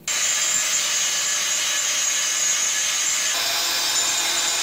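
DeWalt 20V Max cordless drill running steadily as a pilot bit bores into a metal bumper. It starts abruptly, and its sound shifts slightly about three seconds in.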